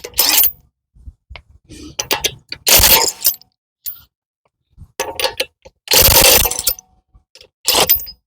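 A wrench taking the lug nuts off a car's front wheel: about six short, loud mechanical bursts with gaps between them.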